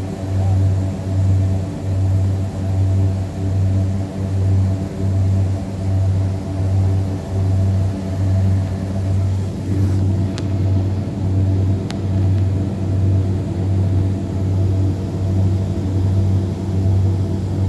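Radial piston engines and propellers running, heard from inside the aircraft cabin: a steady, loud low drone with a throbbing beat about once a second.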